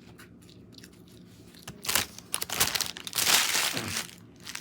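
Fast-food paper packaging being handled close to the microphone, crinkling and crunching. It starts about two seconds in and goes on for a couple of seconds.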